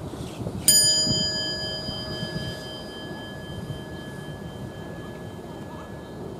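A single bell-like metal chime struck once, less than a second in, then ringing on with a high, clear tone that slowly fades, over a steady outdoor background hum.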